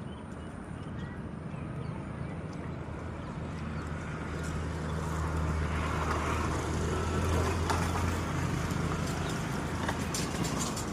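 A motor vehicle's engine hum with road noise, growing louder as it approaches and then easing off near the end.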